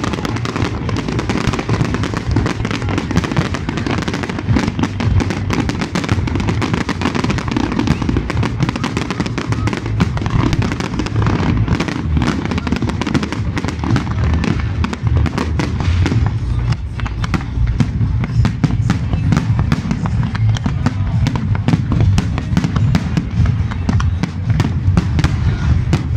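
A large aerial fireworks display: a dense, continuous barrage of bangs and crackles from bursting shells, the cracks coming more separately in the second half.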